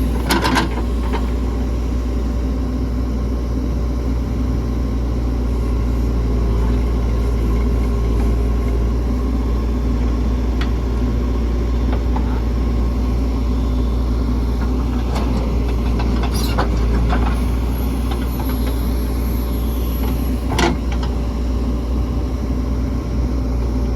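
Diesel engines of a JCB 3DX backhoe loader and a tractor running steadily under load, with a few short sharp knocks, like the metal bucket striking.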